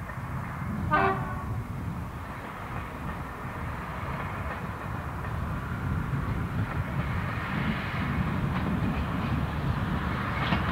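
A Class 117 diesel multiple unit gives one short horn toot about a second in. Its diesel engines and wheels then run louder and louder as it approaches.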